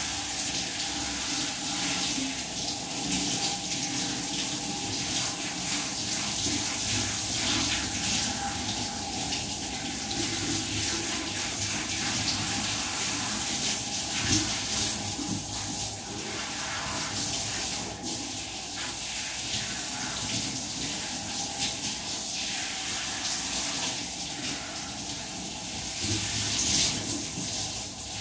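Handheld shower head running, its spray hitting a dog's wet coat: a steady rush of water with small changes as the spray moves.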